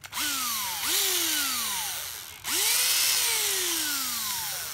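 A 7.2 V cordless drill's motor is run three times in short bursts. Each time the whine jumps up in pitch and then slides slowly down as the motor winds down. The drill has no brake.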